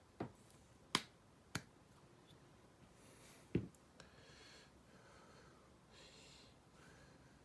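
Small metal parts of a Dye Hyper 3 paintball regulator clicking and tapping against each other and the bench as it is reassembled: four sharp clicks in the first four seconds, then faint handling rustle.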